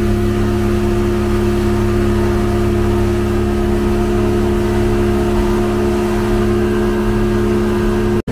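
A ketinting longboat's small engine running steadily at constant throttle, a continuous drone that holds one pitch. It breaks off for an instant just before the end.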